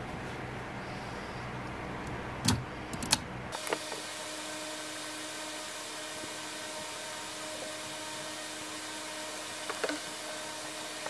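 Two sharp clicks, then a steady hiss with a faint held hum, from an ultrasonic aroma diffuser being switched on and running. A couple of smaller clicks follow near the end.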